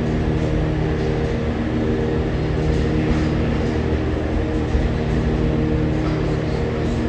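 New York City Subway (A) train slowly pulling into the platform: a steady drone of several held pitched tones over a broad rumble, with no sharp changes.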